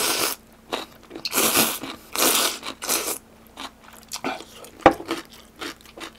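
Slurping of spicy ramen broth and noodles from a small bowl held to the mouth: several loud slurps in the first three seconds, then softer chewing and mouth clicks, with one sharp click about five seconds in.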